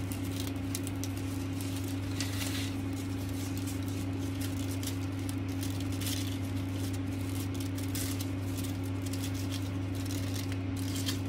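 Ribbon rustling and ticking as it is handled, looped and pulled snug, over a steady low hum.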